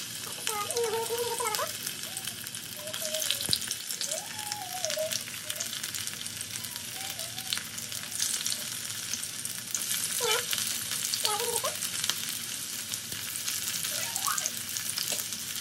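Garlic and onion slices frying in hot oil in a kadai: a steady sizzle, with more pieces dropped in partway through. A few short warbling chirps sound faintly over it.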